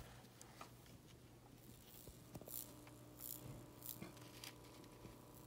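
Near silence: a faint steady hum with a few light handling rustles, and a faint steady tone joining about halfway through.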